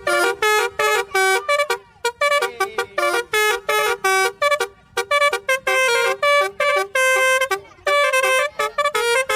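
Telolet (basuri) bus horn playing a quick tune of short notes that step up and down in pitch.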